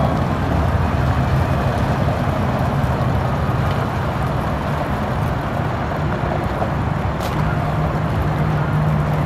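Medium-duty diesel truck's MaxxForce DT engine running steadily as the truck moves slowly away over gravel: a low, even engine hum under a steady hiss of tyre and outdoor noise.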